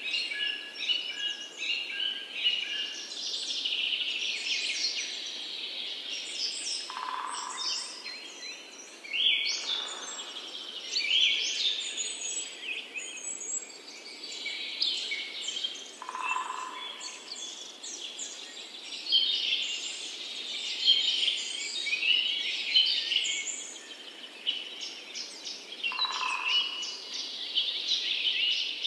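A dense chorus of many birds chirping and trilling, with a lower short call repeating three times, about every nine to ten seconds.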